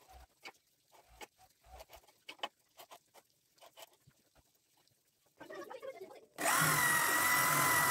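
Corded electric drill boring through a metal angle bracket into a gate tube, starting about six and a half seconds in and running steadily with a high whine. The hole is for riveting the bracket on. Before it come faint scattered taps and clicks of handling.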